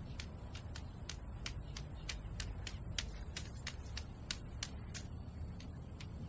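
Quick, light taps about four a second, some sharper than others, over a steady low rumble: a blind man's walking cane tapping on alley pavement as he walks.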